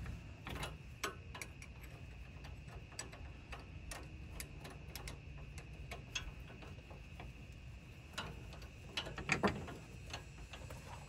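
Irregular light metallic clicks and taps of hand tools working a brake line fitting loose, with a louder cluster of clatter near the end, over a faint steady high-pitched tone.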